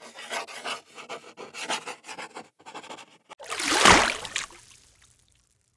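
Pen or pencil scratching across paper in quick, irregular strokes, followed after about three and a half seconds by a louder whoosh that swells and fades away.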